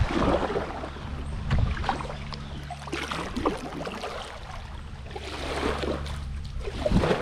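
Kayak paddle strokes: the paddle blades dipping and splashing in river water every second or two, over a steady low hum.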